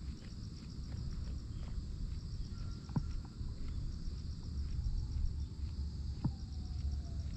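Tokara goats chewing their cud: faint, regular chewing clicks about twice a second, with two sharper clicks about three and six seconds in. Insects chirp steadily in a fast even pulse in the background over a low steady rumble.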